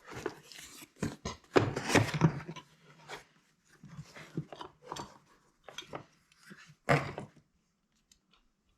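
Short-throw shifter parts being handled and set against each other: irregular clicks, knocks and rustling of small hard parts, with the loudest knocks about two seconds in and again about seven seconds in.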